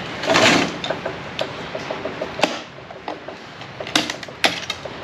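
Steel snap ring being pried and pulled out of an automatic transmission clutch drum by hand: a brief scrape, light metallic ticking, then three sharp metal clicks.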